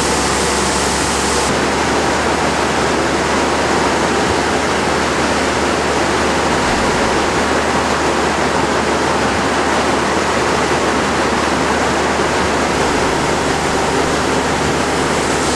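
Steady rushing noise of grain-unloading equipment: a drive-over conveyor running under a grain semi-trailer's hopper while it is unloaded, with a faint low hum under it.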